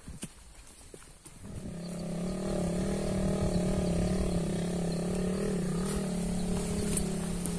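Motorcycle engine running on a nearby track: a steady engine hum fades in about a second and a half in and grows louder, holding a fairly even pitch.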